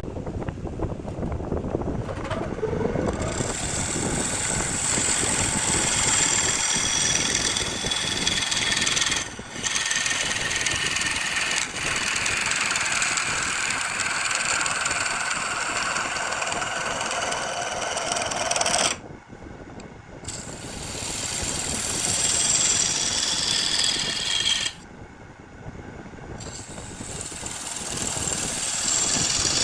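A power tool cutting into wood, with a harsh, dense grinding noise whose pitch sags and recovers as it takes load. It cuts off abruptly several times.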